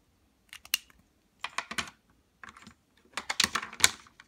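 Handling noise: four groups of quick small clicks and rustles, the last group the longest and loudest.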